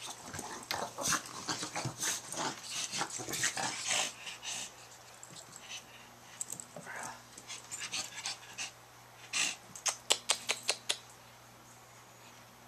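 A small puppy and a ferret playing tug-of-war over a leash: scuffling and rustling on the rug with the puppy's play noises. There is a quick run of sharp clicks about ten seconds in.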